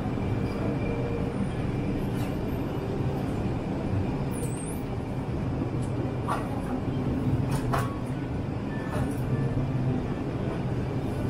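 Supermarket ambience: a steady low rumble and hum, with two brief clicks a little after the middle.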